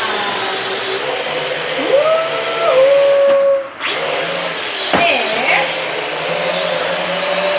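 Toy quadcopter's small electric motors and propellers whirring, the pitch rising and falling as the throttle is worked, with a brief drop about halfway and a single knock about five seconds in.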